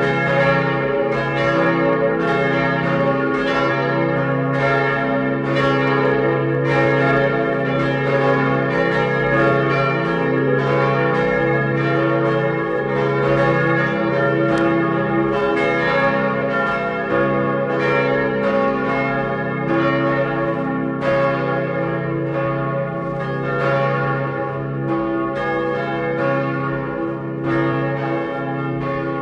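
Synthesized simulation of the full peal of four cast-steel church bells tuned A-flat, B-flat, D-flat and F, built from bell tones rather than recorded. The bells strike in an uneven overlapping pattern, about one or two strokes a second, their tones ringing on continuously beneath.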